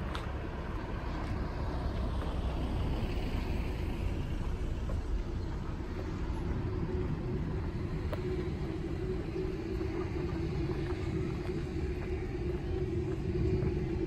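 A car driving past on an asphalt street, its tyre noise swelling and fading over the first few seconds above a steady low rumble. From about halfway a steady hum sets in.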